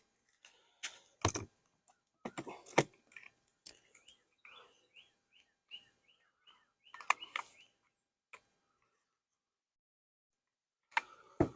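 Sharp clicks and knocks of beehive parts being handled while a plastic small hive beetle trap is fitted into the hive, with clusters of knocks about a second in, around two to three seconds, near seven seconds and near the end. In the middle comes a run of short high chirps, a few a second.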